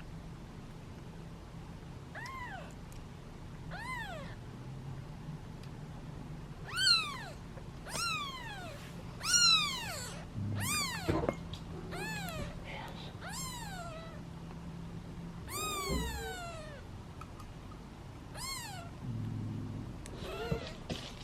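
Young kittens meowing over and over, about a dozen high-pitched calls that each rise and fall in pitch, the insistent cries of hungry kittens waiting to be bottle-fed.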